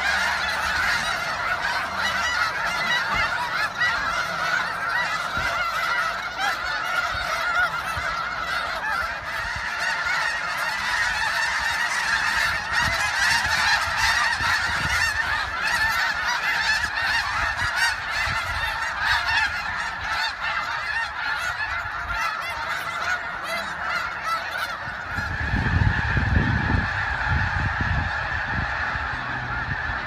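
A huge flock of snow geese calling, a dense unbroken din of overlapping honks. A brief low rumble joins it about 25 seconds in.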